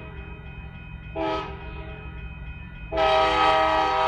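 Locomotive's Nathan K5LA five-chime air horn sounding a chord: a short blast about a second in, then a long blast starting near the end, the close of a grade-crossing signal. A steady low rumble of the train runs underneath.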